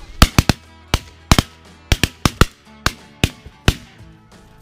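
A rapid, uneven volley of about a dozen shotgun shots, some in quick pairs, from two shotguns fired at flying geese, over background music.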